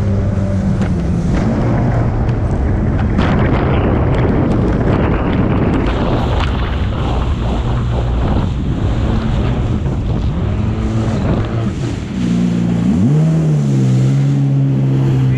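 Jet ski engine running at speed, with water spray and wind buffeting the microphone; the rush of wind and spray drowns the engine through the middle. Near the end the engine note comes back clearly, its pitch dropping and climbing as the throttle changes.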